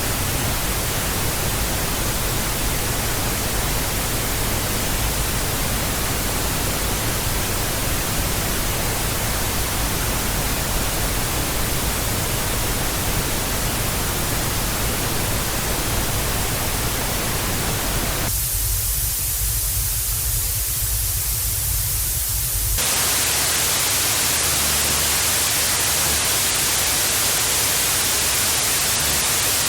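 Television static: a steady hiss of white noise with a low rumble beneath it. It changes texture twice, thinning to a brighter, higher hiss about eighteen seconds in, then switching to a slightly louder, hissier static about five seconds later.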